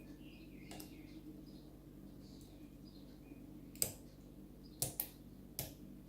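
Lock pick working the pins of an X-Gel anti-snap cylinder lock: a few small, sharp clicks a second or so apart, the loudest about four seconds in, as pins set and drop under the tension.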